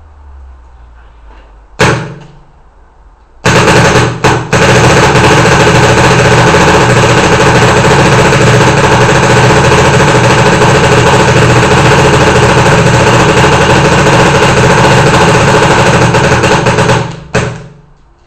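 Bob Long Intimidator electronic paintball marker firing: one shot about two seconds in, then a few shots and a long burst of very rapid fire lasting about thirteen seconds, the shots coming so fast they run together. It stops suddenly near the end.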